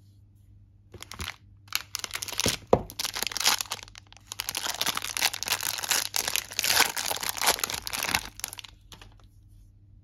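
Plastic soap wrapper being torn open and peeled off a bar of soap by hand: a dense crinkling and crackling with a few sharp snaps. It starts about a second in, is loudest around three seconds in, and stops about a second before the end.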